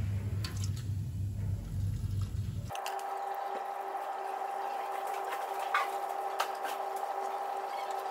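Engine oil draining from a Ford Focus sump plug hole, a thin stream pouring steadily. A low rumble underlies the first few seconds, then cuts off suddenly, leaving a steady two-tone hum beneath the pouring.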